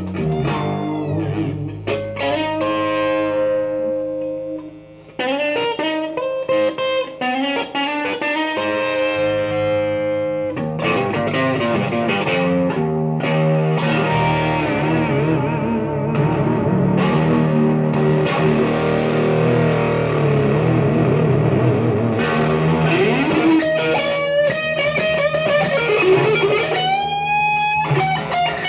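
Electric guitar and electric bass playing live blues-rock with no singing. The guitar holds long notes, and near the end it bends notes up and down.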